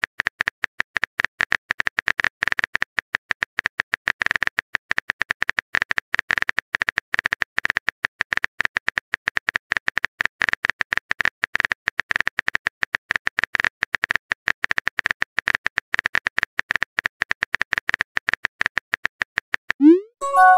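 Rapid keyboard typing clicks from a texting-story app, many a second, as a long message is typed out. Near the end the clicks stop and a short rising swoosh and a brief chime follow as the message is sent.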